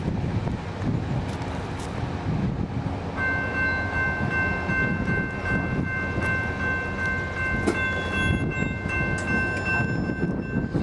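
CSX diesel freight locomotive rumbling as it approaches at the head of a train. About three seconds in, its multi-note air horn sounds one long held chord that lasts to the end.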